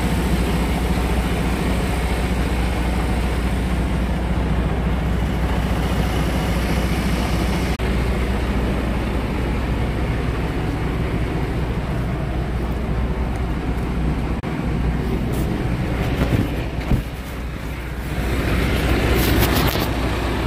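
Diesel engine of a semi truck idling steadily, a low even hum. A few clicks come about three quarters of the way through, and a rush of noise near the end.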